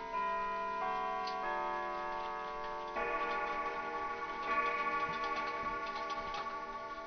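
Clocks ticking steadily, with sustained chord-like tones changing pitch every second or so in a slow melody over the ticking, growing fuller about three seconds in.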